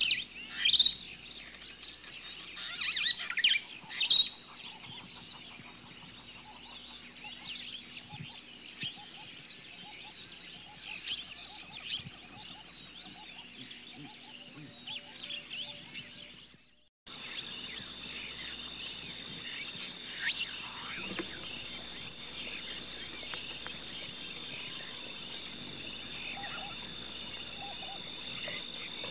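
Birds chirp over a steady high trill. About halfway through the sound fades to silence for a moment, then a louder, even, high-pitched wildlife chorus starts, pulsing about once a second.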